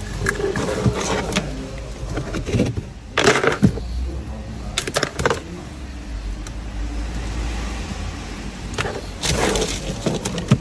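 Plastic wiring-harness connectors and loose wires being handled and plugged together in a car's dashboard radio bay: scattered small plastic clicks and short rustles, with a plastic bag crinkling near the end.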